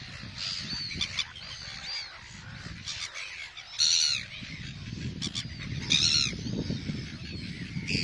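A nesting gull colony calling: a chorus of harsh, repeated squawks from many seagulls. Two louder calls stand out about four and six seconds in.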